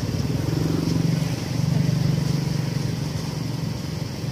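A motor vehicle's engine running steadily, growing louder about a second in and easing off again after the middle.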